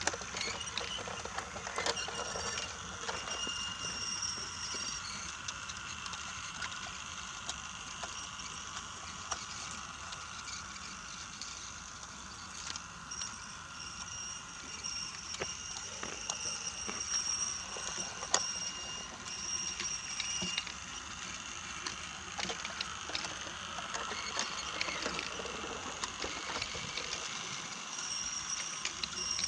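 Brio wooden toy train running along wooden track: a small motor's steady high whine, with the wheels clicking irregularly over the track joints.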